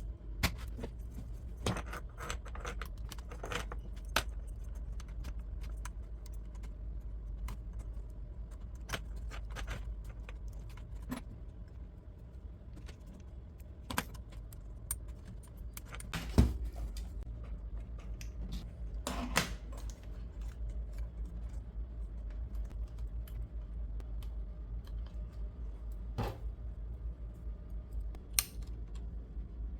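Laptop parts being handled during reassembly: irregular small clicks, taps and light metallic rattles of plastic casing and small metal parts as new speakers are fitted into the base, with one louder knock about halfway through. A steady low hum runs underneath.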